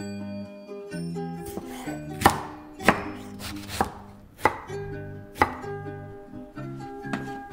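Kitchen knife chopping vegetables on a wooden cutting board: about five sharp strikes roughly a second apart. Light plucked-string background music plays throughout.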